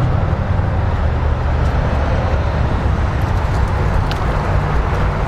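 Steady low rumble of outdoor background noise, unchanging throughout.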